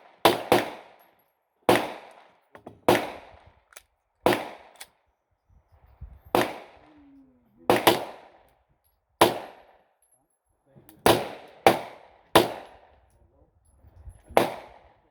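Gunshots from firearms at an outdoor shooting range: about a dozen sharp reports at irregular intervals of roughly half a second to two seconds, each followed by a short echoing decay.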